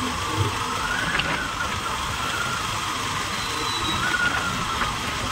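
Motorcycle engine running steadily at cruising speed, with a steady whine whose pitch swells up briefly about a second in and again near four seconds, over a constant rush of road noise.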